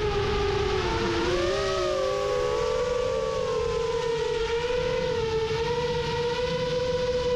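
Rajawali Fold 7 FPV quadcopter's motors and propellers whining in flight as several close tones. They dip and rise a little in the first couple of seconds, then hold steady, over a rush of wind noise.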